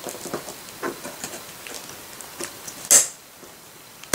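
Plastic punched pockets rustling with small clicks as hands work a lever-arch binder's metal ring mechanism, then one sharp snap of the mechanism about three seconds in and another right at the end.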